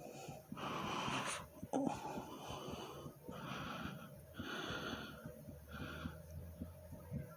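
A person breathing audibly in and out, about five breaths, the first long one loudest, over the faint thumps of a fast heartbeat. A brief knock comes just before two seconds in.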